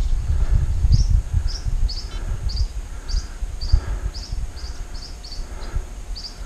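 A small bird chirps short, high notes about twice a second. Under the chirps, louder low thumps and rumble come from someone walking along a dirt track.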